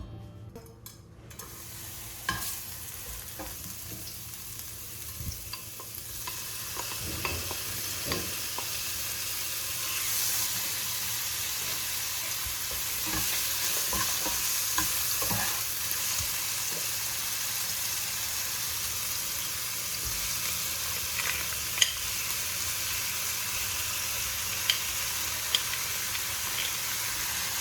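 Food sizzling in a hot pan as it is stir-fried, with scattered knocks of the stirring utensil against the pan. The sizzle builds over the first several seconds, then holds steady.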